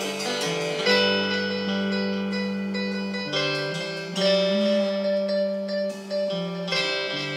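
A live band playing an instrumental passage without singing, guitars to the fore over a bass line, with long held notes.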